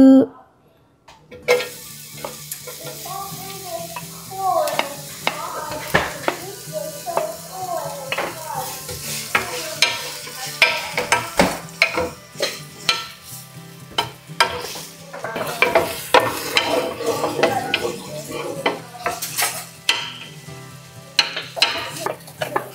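Food sizzling as it stir-fries in a hot pan, with a spatula scraping and clicking against the pan again and again. It starts about a second in, after a brief quiet moment.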